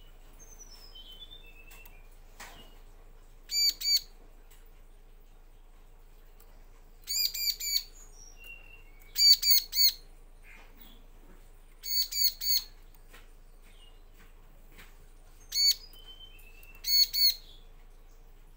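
Bar-winged prinia (ciblek) calling: sharp, ringing notes in short bursts of two to four, repeated every two to three seconds, with a few faint falling notes between the bursts.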